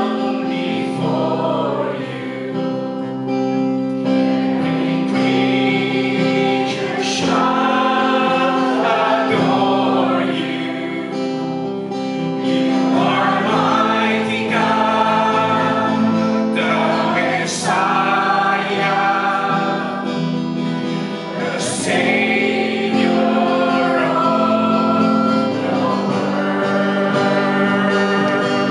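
Group singing of a Christian praise and worship song, voices together over sustained instrumental accompaniment.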